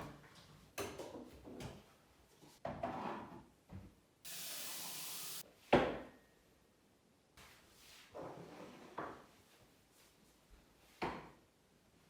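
Scattered knocks and scrapes of things being handled, with a steady hiss lasting about a second about four seconds in and one sharp, loud knock just before six seconds.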